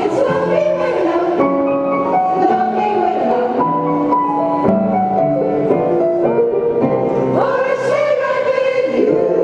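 Women's choir singing in several-part harmony, the voices holding notes and sliding between them.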